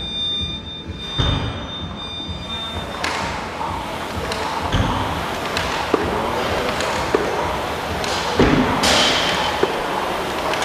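A high steady electronic tone for about the first three seconds, then an air rowing machine's flywheel whooshing as the strokes get going, with a few dull thuds.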